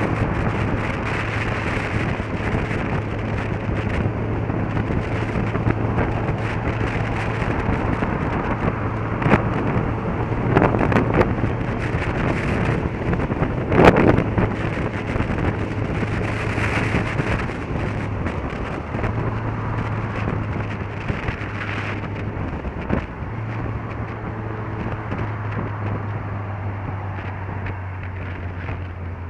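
Motorcycle riding at steady speed: a steady engine note under heavy wind and road noise, with a brief louder burst of noise about fourteen seconds in. The engine note drops a little in pitch toward the end as the bike slows.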